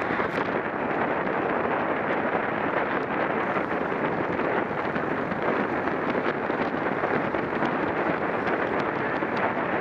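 Steady wind rushing over the microphone of a camera riding on a racing bicycle at speed, with a few faint clicks now and then.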